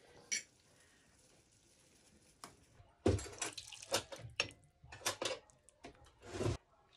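Water splashing in uneven bursts, like running from a tap into a sink. It starts suddenly about three seconds in, after a near-quiet start, and cuts off abruptly near the end.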